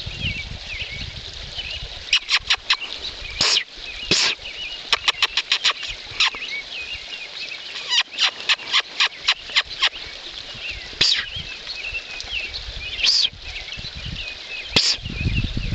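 Wild birds chirping in the background throughout. Runs of sharp clicks, four to eight at a time, come a few times, along with several short, louder smacking bursts, which are the loudest sounds.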